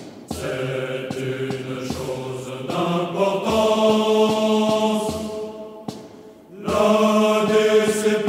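Men's voices singing a slow song in unison, a French Foreign Legion song, in two long held phrases with a brief break about six seconds in, over faint low thuds at a steady pace.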